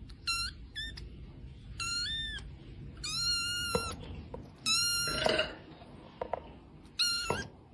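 A cat meowing over and over: about seven short, high-pitched meows with gaps between them.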